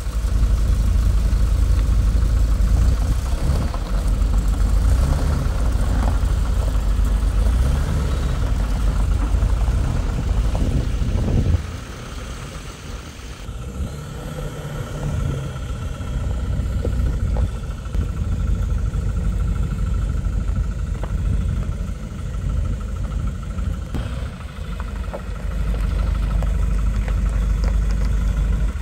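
Isuzu box truck's engine running with a steady low rumble. It is louder for the first eleven seconds or so, drops suddenly, and swells again near the end.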